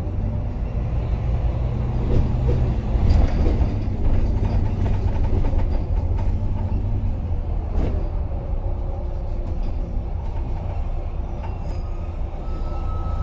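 Volvo B9TL double-decker bus under way, heard from inside: its six-cylinder diesel engine runs with a steady low rumble and road noise, and a couple of brief knocks or rattles come from the body about three and eight seconds in.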